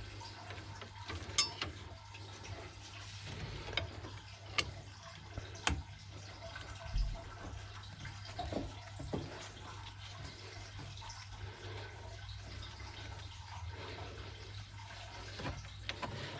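Water running and splashing steadily, with a few sharp knocks in the first half and a low steady hum underneath.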